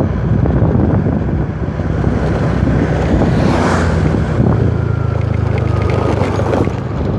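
Steady engine hum of a moving vehicle, with wind buffeting the microphone; a stronger gust about three and a half seconds in.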